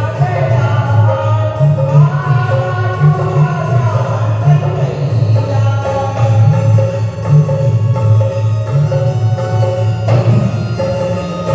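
Hanuman bhajan: devotional Hindi singing over a steady, repeating drum beat.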